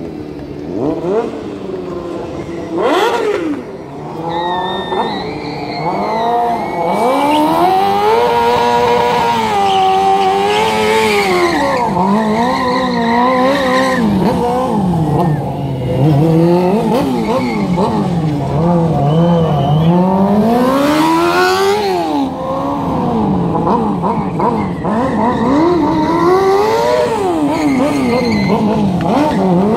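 Sport motorcycle engine revved hard up and down over and over during stunt riding, with a couple of short bursts of tyre noise as the rear wheel slides.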